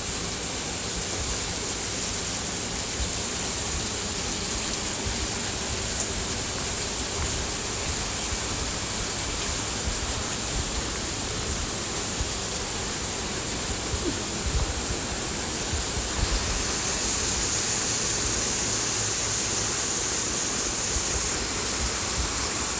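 Steady, loud rushing of water, like fast-flowing floodwater, with irregular low bumps and rumbles underneath. It grows slightly louder about two-thirds of the way through.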